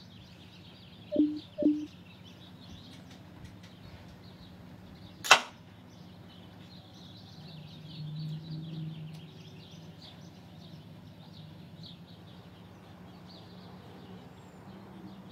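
Faint bird chirping in the background, with two short soft blips about a second in and a single sharp click about five seconds in. Around eight seconds a low, soft handling sound as a louvered cabinet door is opened.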